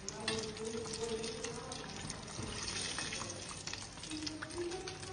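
Battered mushroom pieces deep-frying in hot oil in a small saucepan: a steady sizzle dotted with small crackles, swelling briefly near the middle.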